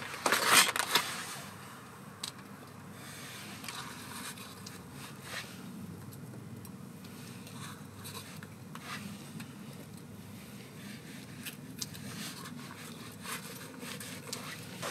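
Hands handling a raw whole chicken in its plastic tray while preparing it: rustling and scraping, loudest in the first second, then quieter rubbing with scattered small taps and clicks.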